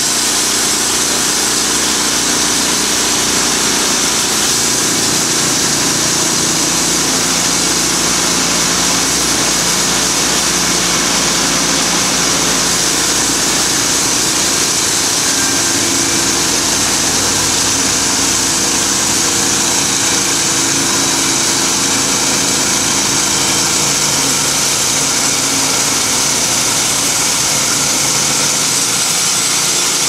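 Logmaster LM1 bandsaw mill running steadily at full cut, its band blade sawing lengthwise through a pine cant to split off boards.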